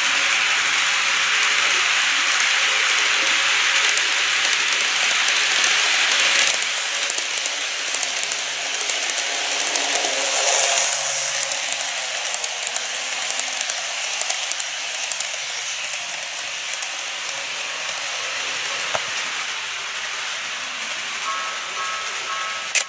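A model train of a red Seibu 9000 series set runs along the track past the microphone. Its wheels and motor make a steady running noise, loudest for the first six seconds, with another rise about ten seconds in. Near the end a model level crossing's warning bell starts ringing in a repeating two-tone pattern.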